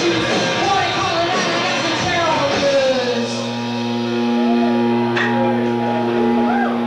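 Live rock band with electric guitar and a woman singing. About three seconds in, the music thins to a steady held chord.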